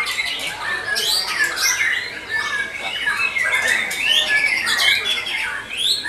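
Many caged songbirds singing at once in a contest, oriental magpie-robins among them: a dense, loud tangle of overlapping rising and falling whistles, trills and rapid chattering rattles with no pause.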